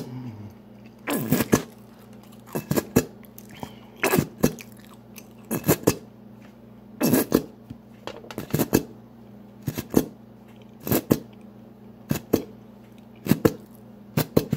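A person chewing food close to the microphone: short crunching chews come in uneven clusters about every second. A low steady hum runs underneath.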